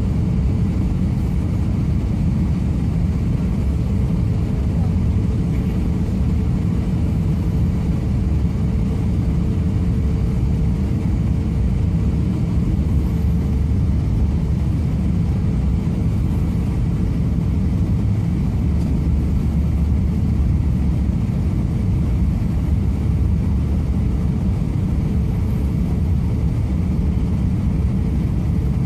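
Steady low rumble of an airliner's jet engines and airflow heard inside the cabin during descent on approach, with a faint steady whine that fades about halfway through.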